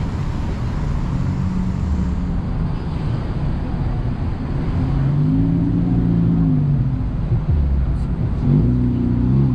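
Road traffic on a busy city street: cars driving past with a steady rumble of engines and tyres. Around the middle, one vehicle's engine note rises and then falls.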